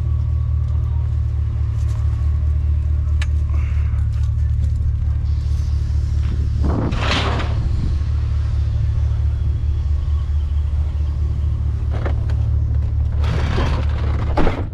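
Steady low engine and road rumble inside a moving vehicle's cabin, with a rushing swell about halfway through and another near the end.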